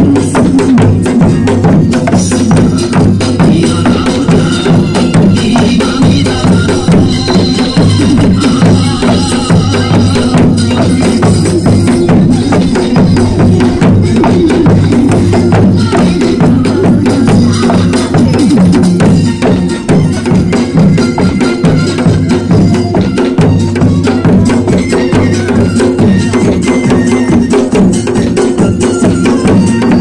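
Traditional Korean dance music playing loudly, with a dense steady beat of handheld sogo drums struck with sticks.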